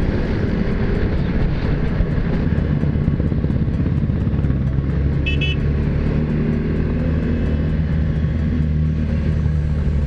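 KTM RC390's single-cylinder engine running steadily at cruising speed, with wind and road noise. A short high-pitched beep sounds about five seconds in.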